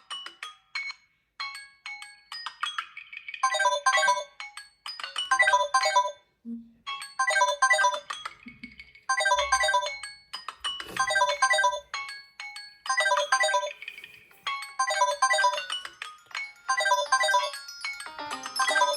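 Smartphone ringtone playing: a bright chiming melody of quick clustered notes, repeated in short phrases with brief gaps between them.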